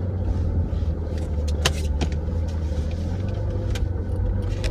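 Jeep Cherokee driving slowly, heard from inside the cabin: a steady low rumble with a few sharp clicks, the loudest a little under two seconds in.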